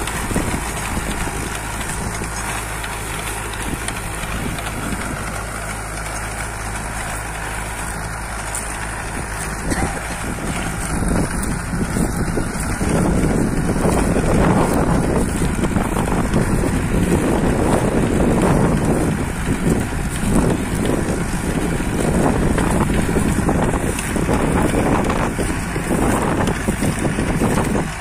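Mahindra Arjun 555 DI tractor's diesel engine running steadily under load, driving a Shaktimaan rotavator through the soil. Wind buffets the microphone, stronger and gusty in the second half.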